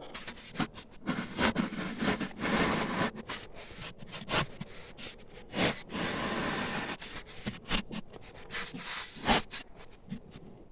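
Pieces of ceramic fiber board being handled and fitted into the stove's burn chamber: scraping and rubbing with scattered light knocks, the sharpest about four and a half, five and a half and nine seconds in.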